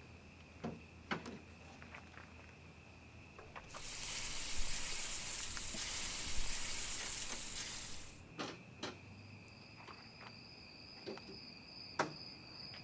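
A steady hiss from the open engine bay of a broken-down pickup, starting suddenly about four seconds in and cutting off about four seconds later. Around it, insects trill on a steady high note, with a few soft clicks and footsteps.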